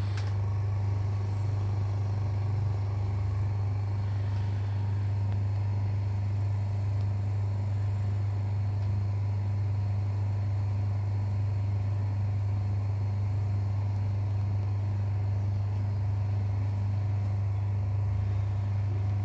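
Huatalehon K18 mini OCA vacuum laminating machine running a lamination cycle on a phone screen, giving a steady low hum at an even level. A single brief click comes right at the start.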